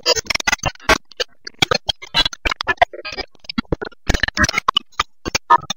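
Edited-in harsh sound effect of rapid, irregular crackles and clicks over a low hiss, like glitch static. It cuts in and out abruptly.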